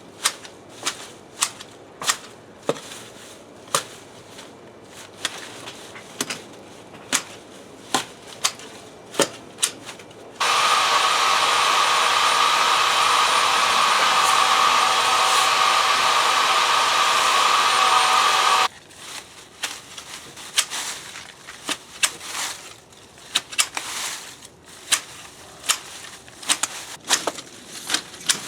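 Hand pruning shears snipping ivy stems, sharp clicks about once or twice a second. About ten seconds in, a loud, steady motor noise starts suddenly, runs for about eight seconds and cuts off, after which the snipping resumes.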